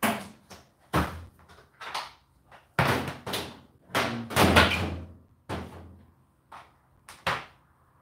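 Irregular knocks and clatters of things being handled and set down, about a dozen in all, the loudest a cluster around three to five seconds in.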